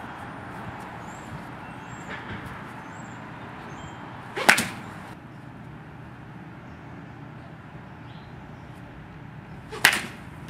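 Baseball bat hitting a ball off a batting tee twice, about five seconds apart: two sharp cracks, one a little before halfway and one near the end.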